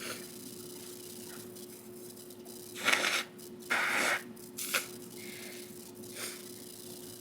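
A person sneezing: a quick run of sharp, breathy bursts about three to five seconds in, the loudest near the start of the run, and a smaller one a little after six seconds. A faint steady hum runs underneath.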